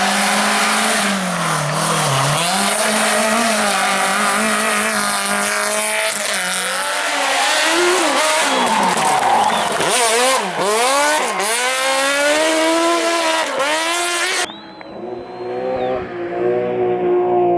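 Rally car engine revving hard, its pitch climbing and dropping through gear changes and lifts. A little after halfway come quick rises and falls in pitch. Near the end the sound changes abruptly to a duller, quieter engine note.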